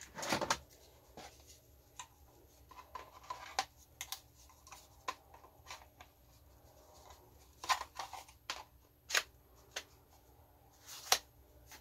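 Scattered plastic clicks and knocks with some faint handling rustle as a 21 V battery pack is taken from a hard plastic case and slid onto a mini cordless chainsaw's battery mount.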